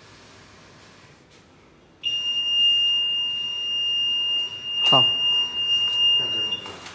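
Food metal detector's alarm buzzer sounding one steady high-pitched tone for about four and a half seconds, starting about two seconds in: the detector is signalling the 4.5 stainless steel test piece passed through on an aluminium-foil-packed biscuit. A short knock sounds partway through.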